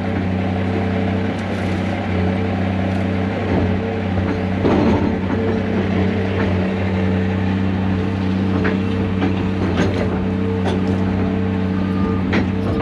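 Heavy diesel equipment engine running steadily, with scattered metallic clanks and knocks from the machine at work.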